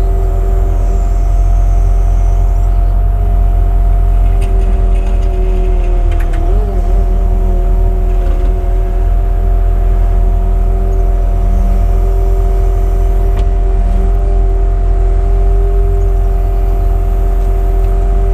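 Cat 306 CR mini excavator running under working load as it digs and swings, with a steady whine over a low diesel rumble. The whine dips briefly in pitch about six and a half seconds in.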